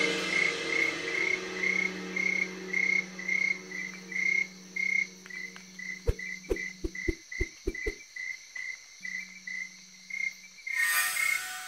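Night ambience of crickets chirping steadily, about two chirps a second. A run of about seven soft knocks sounds between about six and eight seconds in as a stick is jabbed into the soil.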